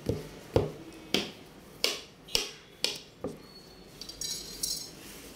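A series of about seven sharp knocks, roughly half a second apart, each ringing out briefly, followed near the end by a short rustle.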